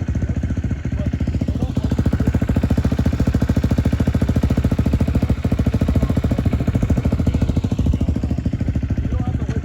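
Small off-road vehicle engine running at a steady idle with a rapid, even pulsing, growing a little louder in the middle of the stretch before easing back.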